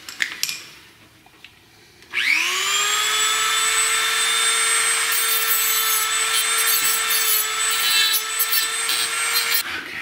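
Dremel rotary tool spinning up about two seconds in to a steady high whine, then grinding down the edge of a boss that was jamming the jackshaft, before switching off near the end.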